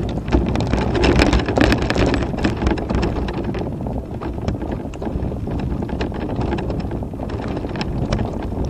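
Wind buffeting the microphone over irregular rattles and knocks from a Tramper off-road mobility scooter jolting along a rutted dirt track; the knocking is busiest in the first few seconds and then thins out.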